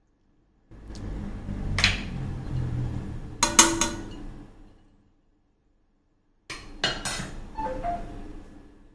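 A spoon stirring masala paste in a bowl, scraping and clinking against its side, in two spells with a pause of about a second and a half between them.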